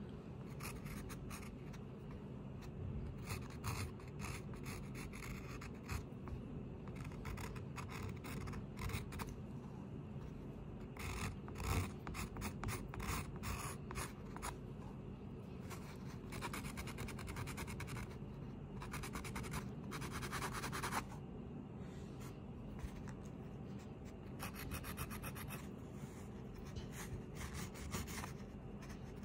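An art tool scratching and rubbing across a drawing surface in short irregular strokes, with a few longer runs of rapid back-and-forth strokes past the middle, over a steady low hum.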